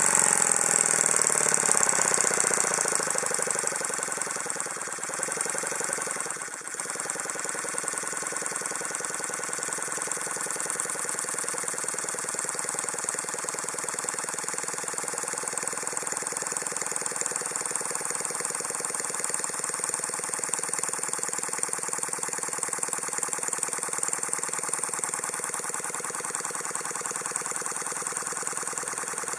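Stuart Turner Star piston-valve model marine steam engine running fast on compressed air: a rapid, even exhaust chatter with a hiss of air. It is loudest at first and eases down over the first several seconds, with a brief dip about six and a half seconds in, then runs steadily.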